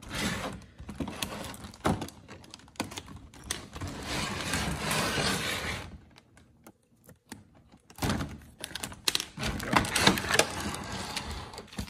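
Clear plastic packaging crinkling and crackling with many quick ticks as it is handled and pulled apart, in two stretches with a short lull about six seconds in.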